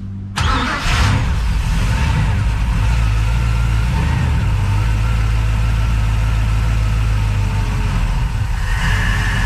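Crusader fuel-injected V8 marine engine starting about half a second in and then running steadily, smooth on its freshly rebuilt injectors and cleaned fuel rail.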